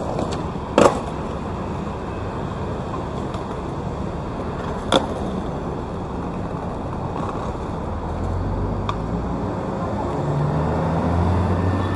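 City road traffic: a steady hum of passing vehicles, with a heavier engine rumble coming close from about eight seconds in. Two sharp clicks, one just after the start and one about five seconds in.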